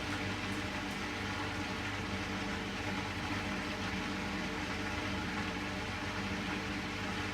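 Hoover Vision front-loading washing machine in its final spin, set to 1000 rpm, the drum turning at a steady high speed with a constant motor hum and whine.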